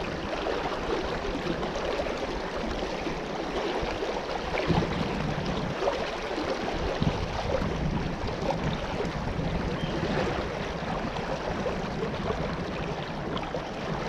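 Shallow river current running over riffles: a steady, even rush of moving water.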